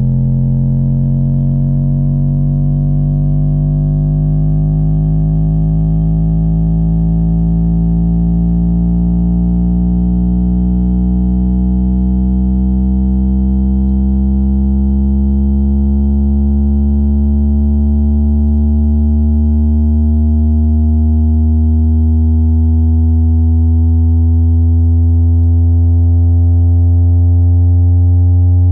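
Subwoofer cone driven hard by a low bass tone that climbs slowly and steadily in pitch, buzzy with many overtones above it.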